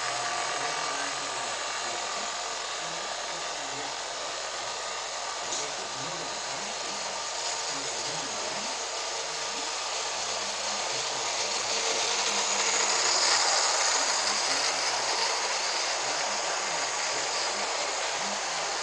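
HO-scale Trix model electric locomotives and their coaches running past on track: a steady electric-motor whir with the rattle of metal wheels on the rails, growing louder about two-thirds of the way through as a train passes close by.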